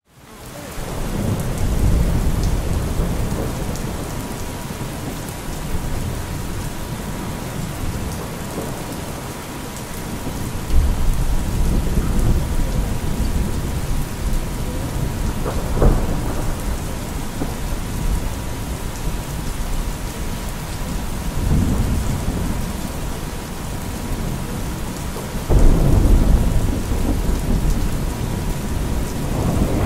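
Steady rain with several rolls of thunder swelling and fading, one starting suddenly near the end, under a faint steady 963 Hz tone.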